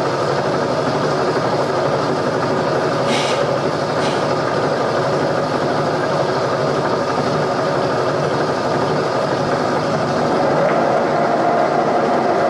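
Milling machine running with a steady hum, with two light metallic clicks about three and four seconds in. It grows slightly louder near the end as a drill is fed into a broken exhaust manifold bolt hole in the cast-iron cylinder head.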